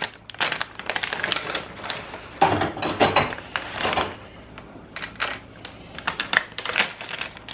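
Condiment bottles and jars clicking and clattering as they are picked up, turned over and set down, with a busier jumble of knocks about two to four seconds in.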